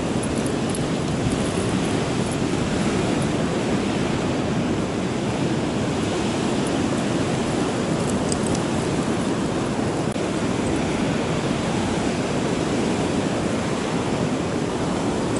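Ocean surf breaking on a rocky sand beach: a steady wash of noise, mixed with wind.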